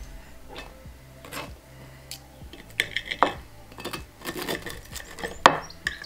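Knife and fork scraping and clinking against a plate as food is cut. The clicks and scrapes come thicker from about halfway through, with the sharpest strike near the end.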